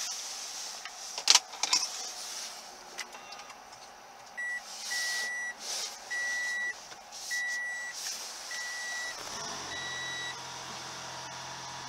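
Sharp clicks about a second in, then the 2016 Toyota RAV4 Hybrid's dashboard chime beeping six times, evenly about once a second. Near the end a steady low hum comes on as the hybrid system switches to Ready.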